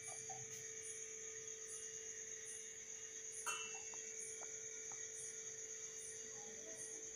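A faint steady electrical hum with a high whine, and a soft high tick repeating a little more than once a second; a light knock about three and a half seconds in.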